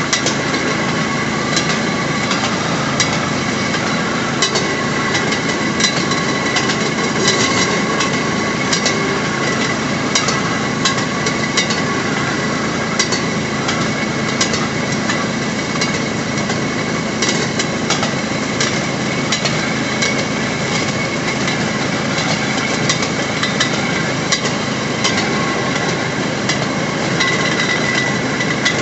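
Railroad speeder (track motorcar) rolling along the rails: a steady engine and running noise with a faint high whine, broken by irregular sharp clicks and knocks from the wheels on the track.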